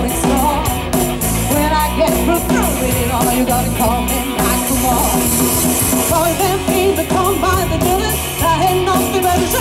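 Live rock band playing loudly: a woman singing into a microphone over electric guitar and a drum kit.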